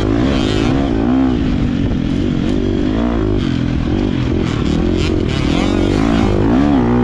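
GasGas MC250 two-stroke motocross bike ridden hard through sand, its engine revving up and down again and again with the throttle.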